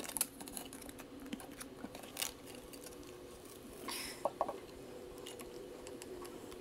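Handling noise as the 8-inch subwoofer driver is lifted out of its cabinet and hands work in the opening: scattered light clicks and knocks, with a brief rustle about four seconds in, over a faint steady hum.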